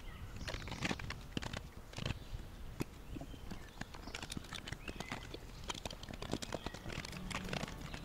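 Metal pans and cookware clinking and knocking as they are packed into wooden cupboards: a steady run of small irregular clatters.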